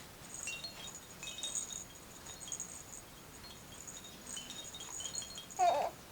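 Light, high-pitched chiming and tinkling in scattered short pings, with a short vocal sound near the end.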